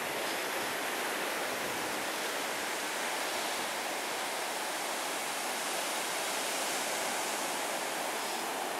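Steady rush of ocean surf breaking and washing up a sandy beach, an even hiss with no distinct single wave crash.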